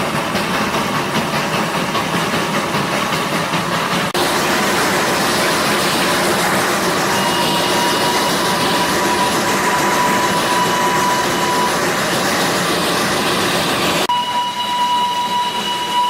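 Darjeeling Himalayan Railway narrow-gauge toy train running, a steady noise that changes abruptly about four and fourteen seconds in where the recording is cut. A steady high-pitched tone sounds over it from about seven seconds in and again near the end.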